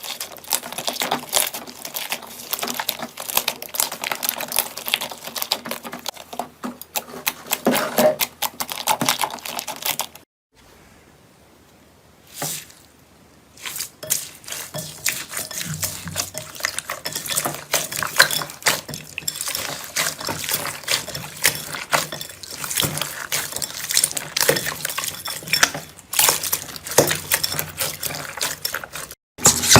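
Slime being squished and kneaded by hand, making dense wet clicking and popping, with a short pause about a third of the way through.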